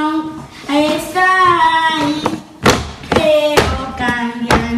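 A song with a high sung voice plays, broken by several sharp knocks or thumps in the second half.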